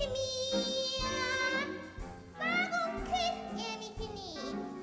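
A woman singing in a musical-theatre style with wide vibrato over backing music. She breaks off briefly about two seconds in and slides down in pitch near the end.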